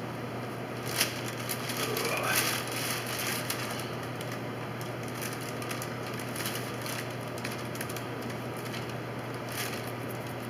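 Paper protective sheeting crinkling, with scattered light knocks and clicks, as a person climbs onto and shifts across a covered wooden boat bench. A steady low hum runs underneath.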